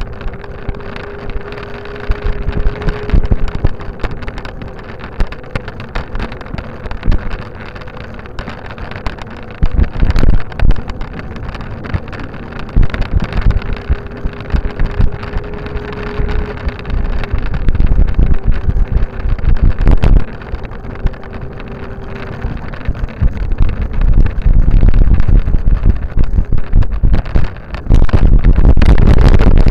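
Wind buffeting the microphone of a camera riding along a paved path, in irregular gusts over a steady rolling rumble. Near the end, as the wheels run onto a wooden plank bridge, the noise jumps to a loud, constant rumble.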